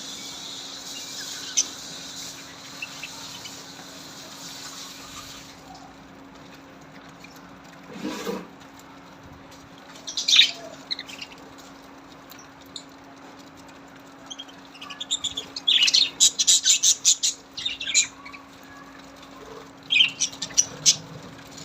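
Small birds chirping: a dense high twittering at first, then sharp high chirps in rapid bursts. A steady low hum runs underneath, and there is a brief thud about eight seconds in.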